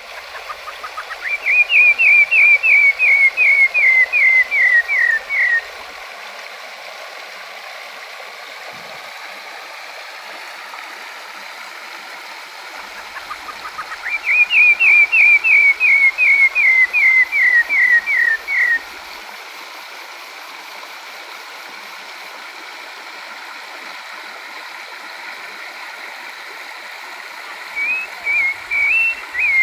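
A sabiá (thrush) sings twice: each song opens with a quick run of rising notes, then about a dozen clear whistled notes stepping down in pitch. A different, more varied phrase starts near the end. Running water rushes steadily beneath the song.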